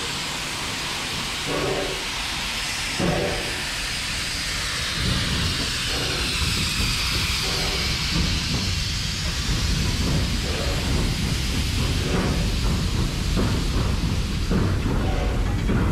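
Victorian Railways D3-class steam locomotive hissing steam as it moves slowly past, with short puffs every second or so that come quicker near the end. A low rumble sets in about a third of the way through.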